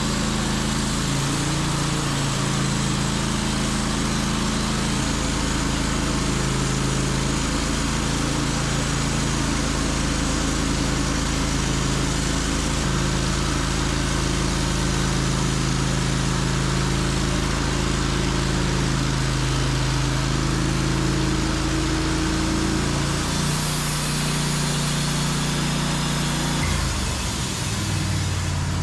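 Portable bandsaw sawmill's engine running steadily, with a wide hiss over its note; the engine note changes about two seconds before the end.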